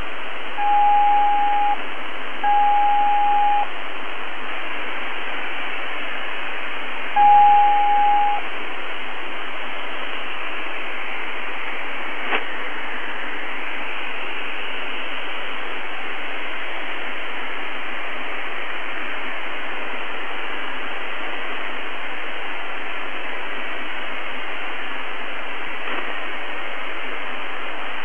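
Shortwave radio hiss on the UVB-76 'Buzzer' frequency, heard through a receiver's narrow audio band, with three steady one-second beeps in the first eight seconds. A faint whistle falls and then rises in pitch about ten to fifteen seconds in, and two sharp clicks crackle through the static.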